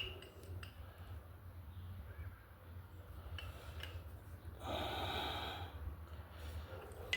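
A single breathy exhale lasting about a second, a little past the middle, over a low steady hum with a few faint ticks.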